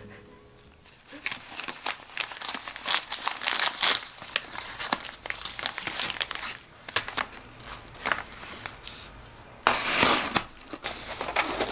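Paper packaging crinkling as it is handled and pulled out of a cardboard box. About ten seconds in, a louder stretch of cutting as a utility knife slices the packing tape on a box.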